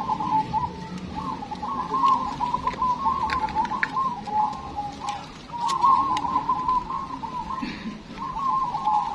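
Many zebra doves (perkutut) cooing at once, their overlapping calls forming a near-continuous chorus with brief lulls about five and eight seconds in.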